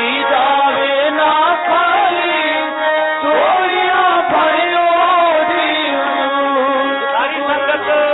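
Indian devotional music: instruments playing a melody with hand-drum strokes, between the sung lines of a devotional refrain.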